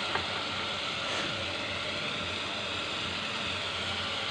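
Onion and ginger-garlic masala paste frying in oil in a pressure cooker over a low flame: a steady, even sizzle.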